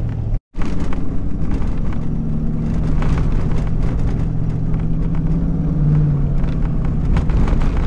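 Pickup truck driving on a sandy dirt track, heard from inside the cab: a steady engine drone over tyre and road noise, with knocks and rattles from the rough surface. The engine note rises a little around the middle. The sound cuts out for a moment about half a second in.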